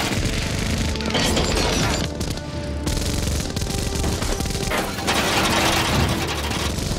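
Film soundtrack of a six-barrel rotary minigun firing long continuous bursts, broken by brief lulls about two seconds in and again near five seconds, with booms and crashing impacts from the targets. Film score music plays underneath.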